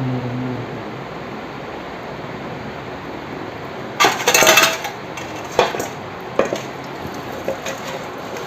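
Metal tools and parts clinking and knocking against each other: a dense rattle of clinks about four seconds in, then a few single sharp knocks, over a steady workshop background noise.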